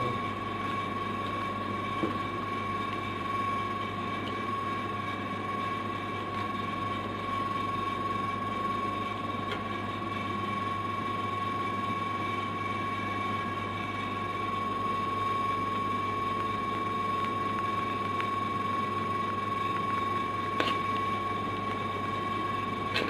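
Steady machine hum with a constant high whine over it. There are a few light clicks, about two seconds in and near the end.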